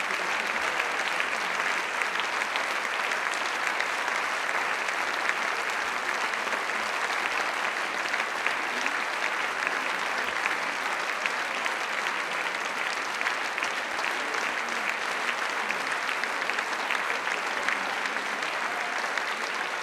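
Audience applauding steadily, a dense patter of many hands clapping without a break.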